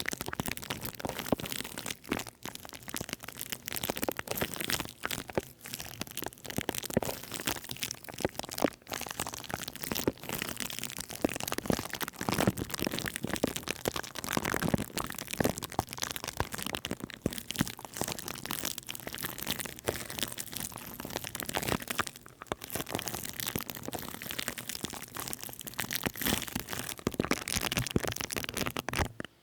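Dense crackling and crinkling right against the microphone: an ASMR trigger of rapid, irregular sharp crackles that cuts off suddenly at the end.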